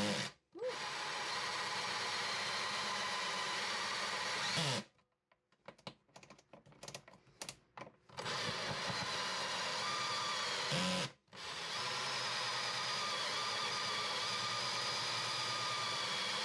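Ryobi cordless drill turning a hole saw into a teak butcher-block countertop, running steadily under load. It cuts out for a moment just after it starts, stops for about three seconds midway with a few short trigger blips, and stops briefly again about two-thirds through before running on.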